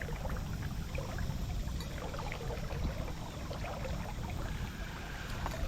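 Water lapping and trickling around a kayak, with scattered small clicks over a steady low rumble.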